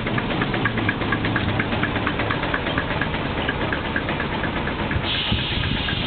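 Case 110 steam traction engine running, with a quick, even beat of strokes. A steady hiss of steam starts about five seconds in.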